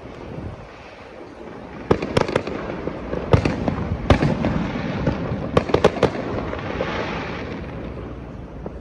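Distant aerial fireworks bursting: a run of sharp bangs, some in quick pairs and triples, from about two seconds in to about six seconds in, over a crackling rumble that fades toward the end.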